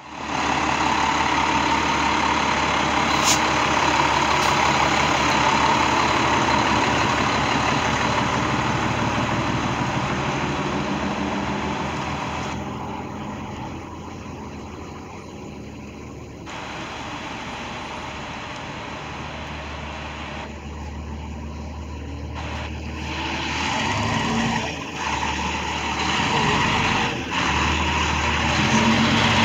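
Diesel engines of FDNY fire trucks running as the Engine 246 pumper pulls away and Ladder 169 rolls past close by. The engine sound drops off in the middle, then grows louder near the end as the ladder truck passes. A short sharp sound comes about three seconds in.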